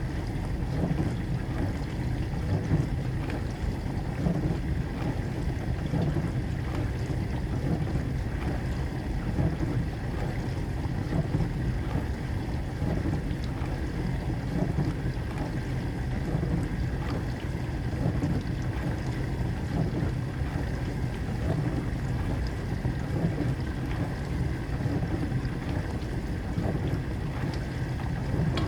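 Household appliance running with a steady low rumble and a faint hum, unchanging throughout.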